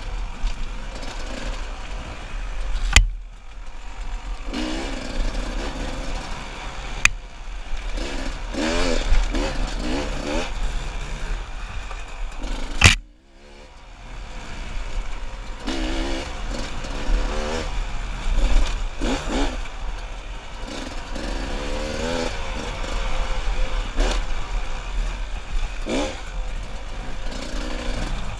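Dirt bike engine revving up and down as the throttle is worked on and off, with two sharp, loud knocks about three and thirteen seconds in; the engine sound drops away briefly right after the second knock, then picks up again.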